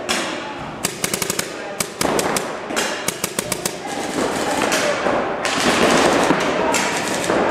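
Paintball markers firing in quick strings of sharp pops, several shots a second, with voices in the background that grow louder in the second half.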